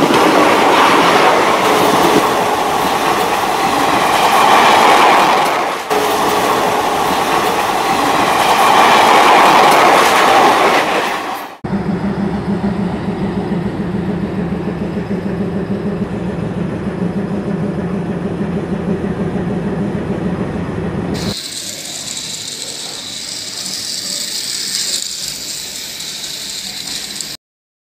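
Battery-powered toy train running on plastic track: the motor whirs and the wheels clatter steadily. The sound changes abruptly at shot cuts, becoming a lower, steady rhythmic hum about a third of the way in and a thinner, higher whir near the end. It cuts off just before the close.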